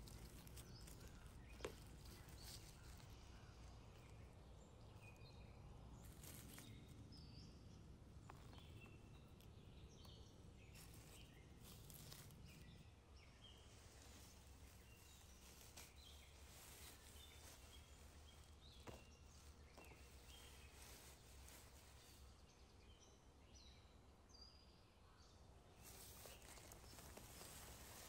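Near silence outdoors: faint, short bird chirps scattered throughout over a low steady background hum, with a few soft rustles and clicks from hands in dry leaves and grass.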